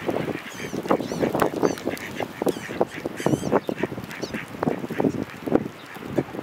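Drake wood duck calling with a series of thin, high whistles that rise and fall, several in a row.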